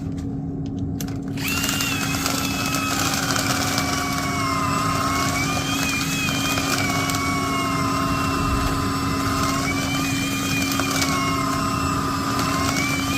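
Power-tool motor switched on about a second and a half in, running hard with a whine that wavers in pitch as its speed shifts, over a steady low hum.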